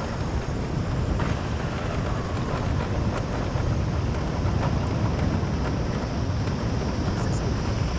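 Wind rushing over the microphone on a moving motorbike heading downhill, over the bike's steady low rumble.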